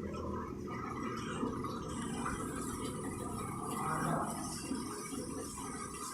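Water running and splashing steadily, a small waterfall spilling down an artificial rock-cliff pond wall into the pool, with a brighter hiss of falling water from about two seconds in.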